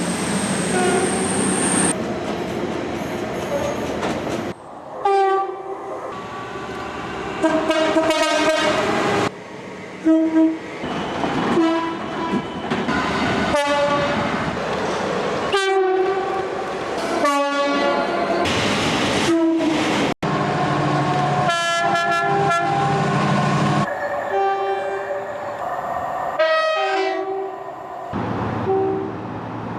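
A string of passing trains sounding two-tone horns, many short blasts alternating between a low note and a high note, over the rumble of the trains on the track. Several separate clips follow one another with sudden cuts.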